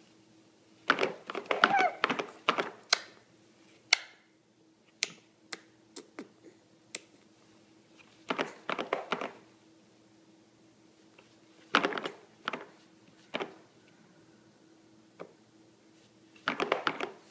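Baby's hands slapping and patting a plastic highchair tray: short bouts of quick taps and knocks with pauses between.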